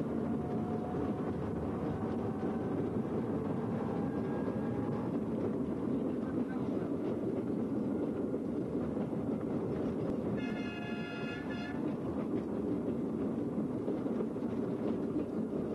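Railway works drezine running along the rails, a steady rumble of engine and wheels on poorly kept track, with a faint whine rising slowly in pitch over the first few seconds. About ten seconds in, its horn sounds once for just over a second.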